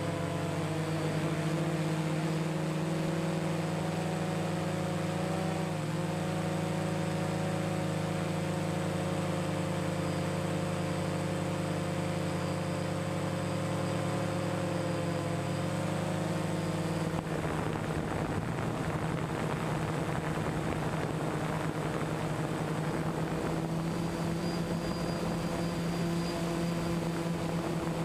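DJI Phantom 1 quadcopter's motors and propellers humming steadily, picked up by the camera mounted on it. The pitch of the hum shifts slightly a few times as the drone manoeuvres. About seventeen seconds in, the hum turns rougher and noisier.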